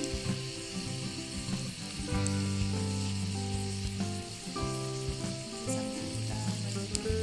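Rolled slices of sukiyaki beef sizzling steadily on a hot buttered cast-iron pan, with a few sharp crackling pops.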